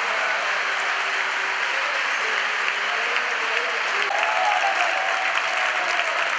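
A large crowd of spectators applauding steadily, growing a little louder about four seconds in.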